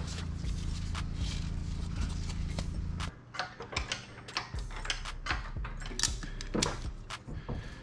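Ratchet strap around an engine being worked by hand: a run of sharp, irregular clicks and clacks. Under it, a steady low hum stops abruptly about three seconds in.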